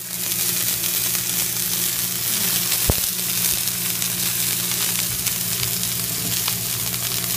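Ribeye steaks sizzling steadily in a hot pan as they are laid in to sear, with a steady low hum underneath and a single click about three seconds in.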